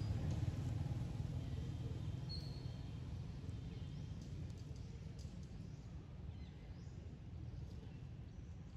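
Outdoor ambience: a steady low rumble that slowly fades, with one short high chirp about two and a half seconds in and a few faint clicks.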